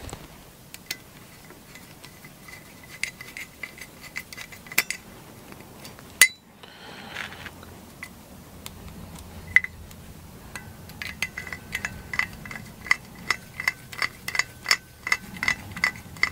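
Bit screwdriver driving small screws into a plastic printer part, with scattered metallic clicks and clinks of the bit and screws. One sharp click is the loudest, about six seconds in, and from about eleven seconds a run of even clicks comes about three a second.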